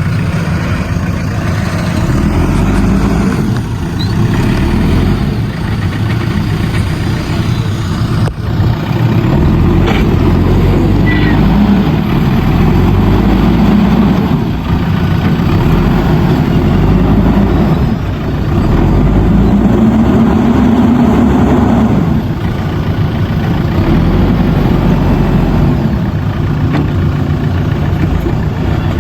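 Backhoe loader's diesel engine running under load, rising and falling in revs as the machine works, with a few longer swells of revving.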